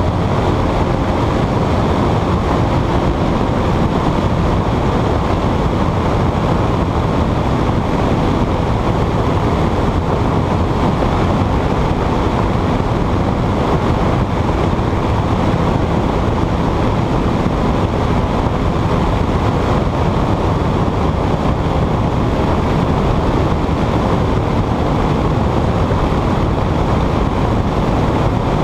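Powered hang-glider trike in flight: its engine and propeller running at a steady drone, mixed with wind rushing over the microphone.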